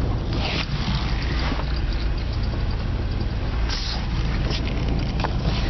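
The 1984 Oldsmobile Cutlass Ciera's 3.0 L Buick V6 is running steadily as the car creeps along. The engine carries a rod knock from burned rod and crankshaft bearings. There is a short click near the end.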